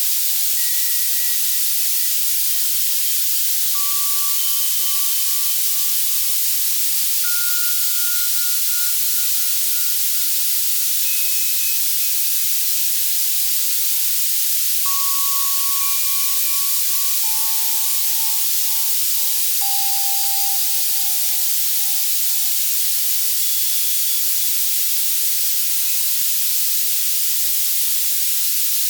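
Steady white noise from an Access Virus C synthesizer, heaviest in the high end, with soft synthesized bell tones sounding one at a time every few seconds at scattered pitches, each fading away over one to four seconds.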